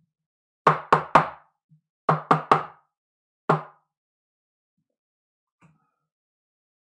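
Seven sharp knocks in a rhythm: three quick ones about a second in, three more about two seconds in, then a single one about three and a half seconds in, each with a short ring.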